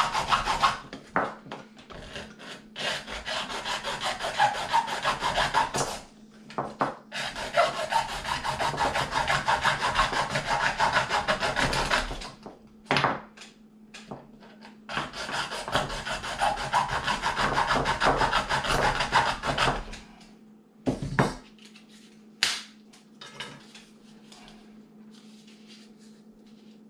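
Hacksaw cutting through the plastic cap of an aerosol can, in several long runs of rapid strokes with short pauses, stopping about twenty seconds in. After that come a few sharp knocks and clicks as the plastic is worked loose, over a faint steady low hum.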